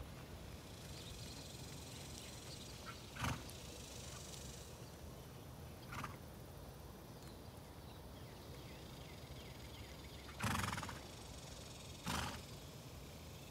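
A horse making four short noisy sounds, the third the longest and loudest, over a faint steady outdoor hiss.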